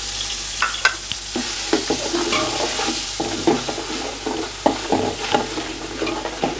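Wet ground onion, green chilli and mint paste sizzling in hot oil in a large metal pot, with a steel spoon scraping and knocking against the pot as it stirs the paste through the oil.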